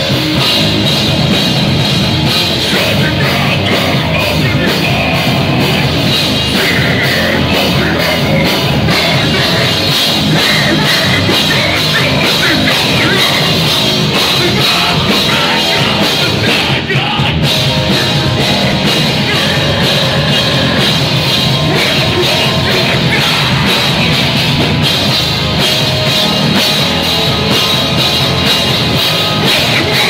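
A heavy metal band playing live: drums, bass and guitar with vocals through the PA, loud and dense, with a brief break in the sound about halfway through.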